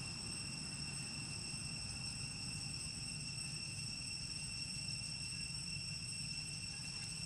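Steady, unbroken high-pitched insect drone with a low steady noise beneath it.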